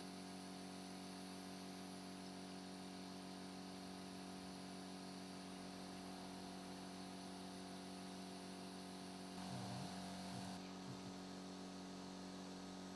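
Faint steady electrical hum over a light hiss, with a brief slightly louder patch about nine and a half seconds in.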